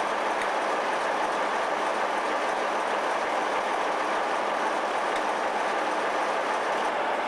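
Class 47 diesel locomotive 47756 standing with its Sulzer twelve-cylinder engine idling, an even, unchanging running sound.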